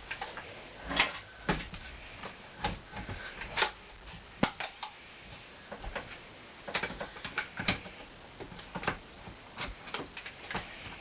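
Irregular clicks and knocks of an airsoft rifle's plastic stock being handled as an 8.4-volt battery is worked into the cheek-rest compartment, which is hard to get into.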